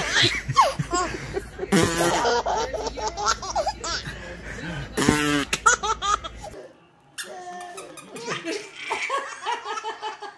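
A baby laughing hard in repeated bursts, with a fast run of laughs about five seconds in. After a brief drop in level around seven seconds, a toddler and a man laugh together.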